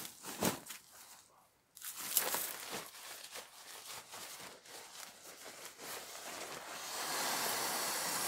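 Rustling and crinkling of camping gear and bags being handled, with a couple of sharp knocks at the start and a steadier, louder rustle near the end.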